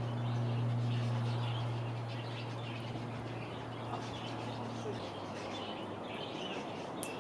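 Small birds chirping in the background over a steady low hum that stops about five seconds in; a single sharp click near the end.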